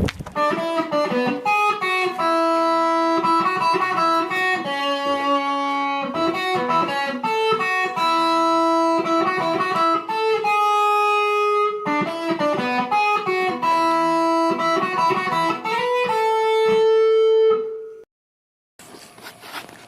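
Plucked guitar music, a melody of clear picked notes that fades out about 18 seconds in, followed by a moment of silence and faint room noise.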